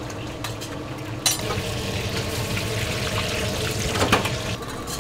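Hot oil sizzling in a deep fryer as braised food fries, starting about one and a half seconds in and fading near the end. Steel tongs click against the metal bowl and fryer a second in and again near the end.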